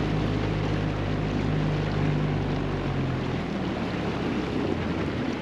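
A dinghy's outboard motor runs at low speed with a steady hum, over the rush of water and wind. The motor's hum drops away about three seconds in as the dinghy slows toward the dock, leaving the water and wind noise.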